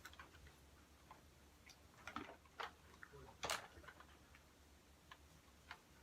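Near silence: a low hum with scattered faint clicks and taps, the loudest about three and a half seconds in.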